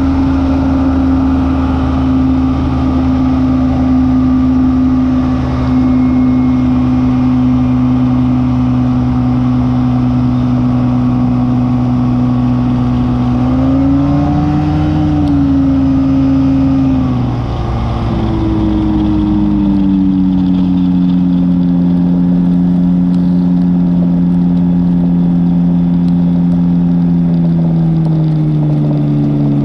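Phantom X1 ultralight's Rotax 503 DCDI two-cylinder two-stroke engine running steadily, its pitch rising briefly about halfway through, then dropping as the engine speed changes, and stepping down again near the end.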